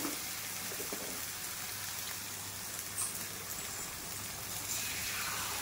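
Potatoes and spice masala in a hot pan sizzling as water is added for the gravy: a steady hiss with a few faint pops.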